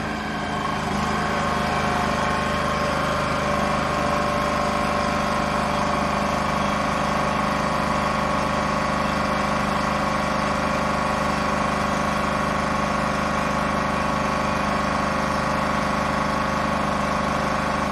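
Hydroblaster's high-pressure water pump running steadily, a constant mechanical drone with a whine in it, as the jet blasts rust and marine growth off metal.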